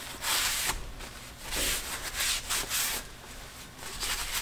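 Brass-bristle brush scrubbing degreaser and grease off a bare metal milling-machine part, in back-and-forth scouring strokes: a few long strokes, then quicker ones near the end.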